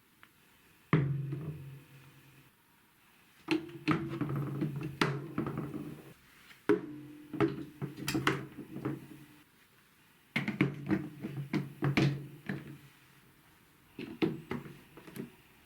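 Marbles rolling and clacking along a marble-run track, with sharp clicks over a rolling rumble. They come in five runs of a couple of seconds each, separated by short quiet pauses.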